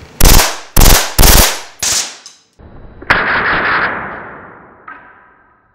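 KSC Auto 9 gas blowback airsoft pistol firing on full auto: four short, loud bursts in the first two seconds. About three seconds in comes one sharp crack, followed by a long fading rush.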